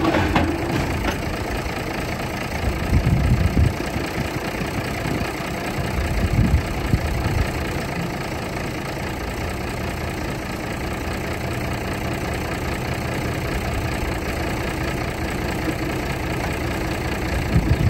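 Tractor engine running steadily as it tows a wide ballast roller, with a few heavier low thumps about three and six seconds in.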